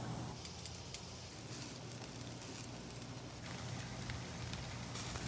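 Food sizzling over a charcoal grill, a hiss that swells and fades in stretches with small scattered crackles.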